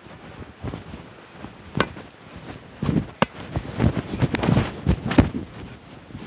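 Irregular rustling and bumping, as of a phone moved about right against fabric or fur, with sharp clicks a little under two seconds in and about three seconds in.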